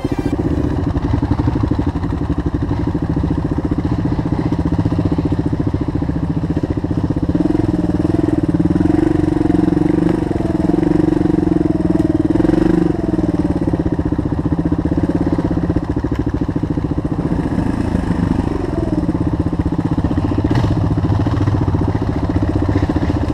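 Single-cylinder engine of a Suzuki DR dual-sport motorcycle running at low trail speed, heard from on the bike. The revs rise and fall as the rider works the throttle over rough, muddy ground.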